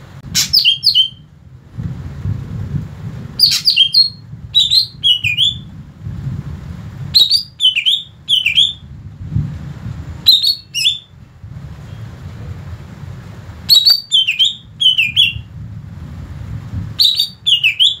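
Green leafbird (cucak ijo) singing: six short phrases of quick, sharp whistled notes, each note sliding down in pitch, with pauses of a couple of seconds between phrases.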